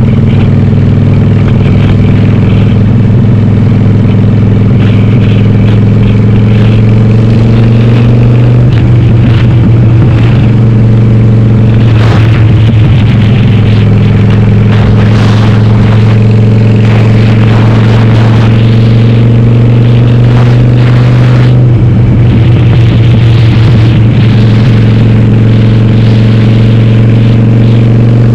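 Harley-Davidson Sportster's V-twin, bored to 1200, running loud through a Cobra Speedster 909 exhaust with its baffles (dB killers) removed, heard from the bike while riding. The engine holds a steady note, which breaks up briefly three times as the throttle changes, and climbs slightly near the end.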